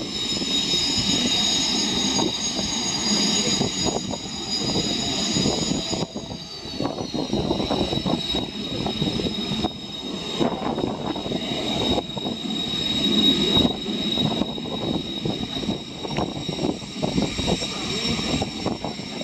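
Kawasaki T-4 jet trainers' engines passing overhead: a steady high turbofan whine whose tones drop in pitch about six seconds in and again near the end as the jets go by. Strong wind buffets the microphone throughout.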